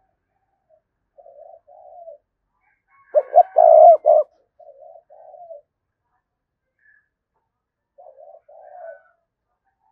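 Spotted dove cooing: short phrases of a couple of quick notes and a longer drawn note, repeated every few seconds, with a much louder burst about three seconds in. These are decoy calls meant to provoke wild doves into answering.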